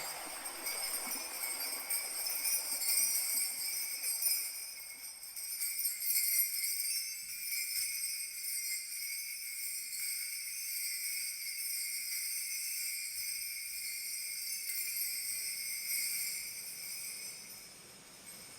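Kaskawillas, Mapuche bronze bells, shaken without a break in a dense, shimmering jingle that imitates falling water. It fades away over the last couple of seconds.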